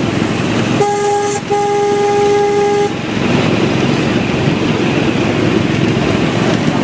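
A miniature railway locomotive sounds two toots on one steady note, a short one about a second in and a longer one just after. Underneath is the steady running noise of the ride-on train moving along the track.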